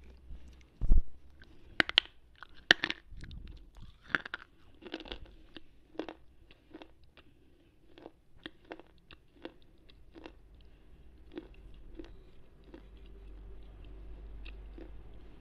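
Slate pencil being bitten and chewed close to a microphone: sharp, crackly crunches, loudest in the first few seconds, then a run of smaller crunches about one or two a second that thins out near the end.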